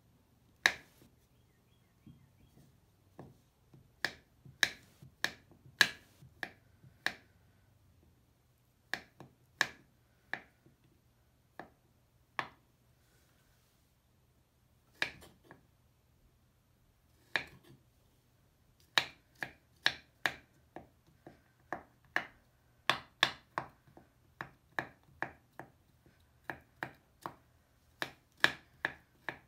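Knife slicing and chopping a crumbly Lush bubble bar on a wooden cutting board: each stroke is a crisp snap as the blade cracks through the bar and hits the board. The strokes come singly and in short runs with pauses at first, then about two a second from about two-thirds of the way in.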